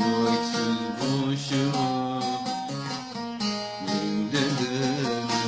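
Instrumental passage of a sad Turkish song, led by plucked string instruments playing the melody over a steady accompaniment.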